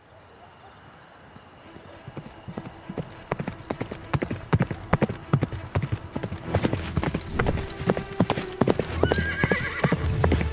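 Hoofbeats of a galloping horse, growing louder as it approaches, with a short whinny near the end.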